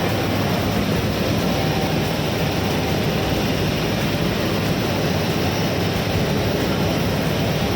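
Nilgiri Mountain Railway train giving off a steady low rumble, with no separate knocks or whistle.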